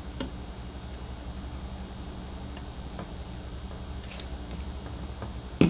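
A few faint, sharp clicks and taps from handling a replacement phone screen glass as it is set onto the phone, over a steady low hum, with a louder knock right at the end.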